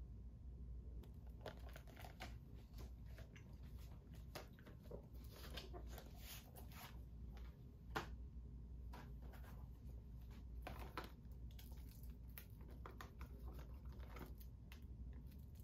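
Faint handling noise of a Blu-ray disc case and its paper and cardboard inserts: scattered rustles and light clicks, with one sharper click about eight seconds in, over a low steady hum.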